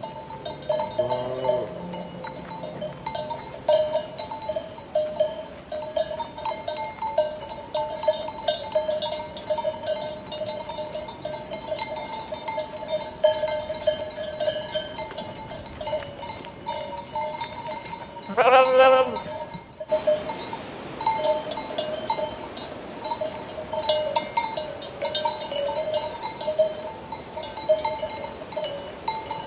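Many sheep bells clanking and ringing irregularly. A sheep bleats once loudly about two-thirds of the way in, and another bleats more faintly near the start.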